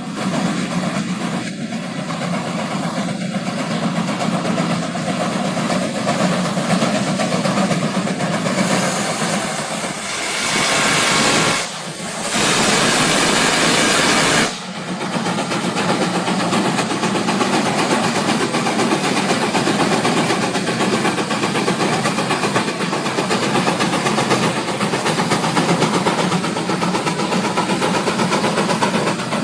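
Vintage tractor engine running steadily. About ten seconds in, a loud hiss starts, lasts about four seconds and cuts off suddenly.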